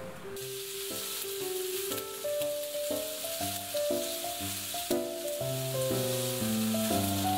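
Sliced onion, green pepper and sausage sizzling as they are stir-fried and stirred in a hot frying pan; the sizzle starts a moment in. A gentle melody of background music plays over it.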